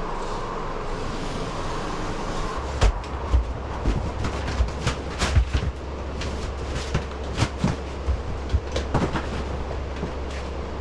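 Drywall being pulled off a wall by hand and broken up: a scattered run of sharp cracks and knocks as pieces come away and are dropped. A steady low rumble comes in a few seconds in.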